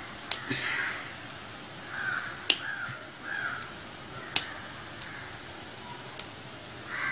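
Five sharp clicks spread through as the power bank's metal battery cells and plastic cell holder are handled, with crows cawing several times in the background, mostly in the first half.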